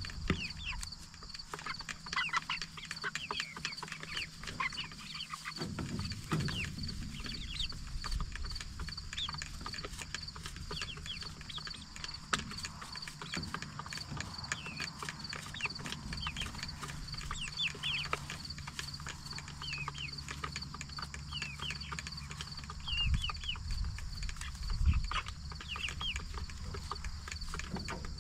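Flock of 44-day-old Cornish Cross broiler chickens peeping and chirping in many short high calls, over a steady low hum.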